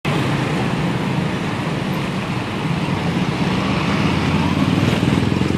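Road traffic with a bus engine running, a steady low rumble that grows a little louder toward the end; no telolet horn is sounded.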